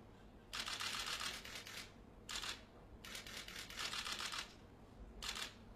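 Camera shutters firing in rapid bursts: four runs of fast clicking, the longest about a second and a half, with short pauses between them.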